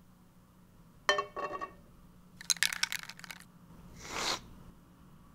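A sharp metallic clink with a brief ring about a second in, a quick run of rattling clicks a little later, then a short hiss from an aerosol whipped-cream can spraying.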